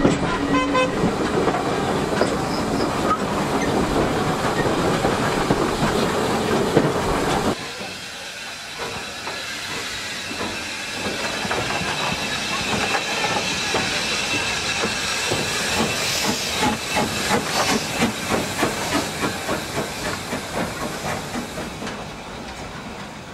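Steady running noise of a railway carriage on the rails. About seven and a half seconds in it gives way to a saddle tank steam locomotive passing a platform, hissing steam, with a run of regular exhaust chuffs that fades as it draws away.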